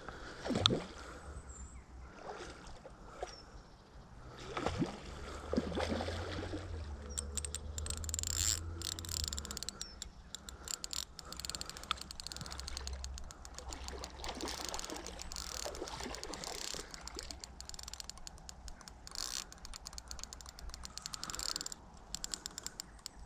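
Fishing reel on a rod clicking rapidly and unevenly for most of the time while a hooked fish is played on the line. A few sudden knocks come in the first six seconds.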